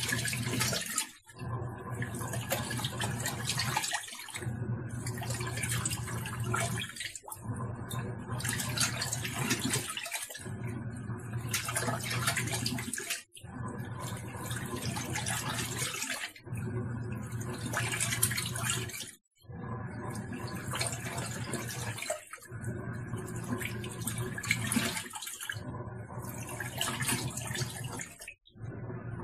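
Tangarus Mallorca portable washing machine running a wash: the motor hums and the water churns, stopping for a moment about every three seconds as the agitator reverses direction.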